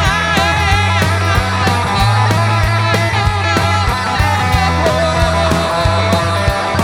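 Rock band playing an instrumental passage: a wavering lead melody over steady bass notes and regular drum hits.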